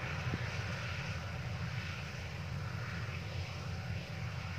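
Yanmar combine harvester running steadily while cutting rice, heard from a distance as an even engine drone.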